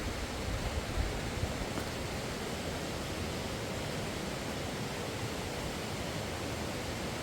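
Steady rushing of fast-flowing river water, an even hiss with no let-up, with some low wind rumble on the microphone in the first second or so.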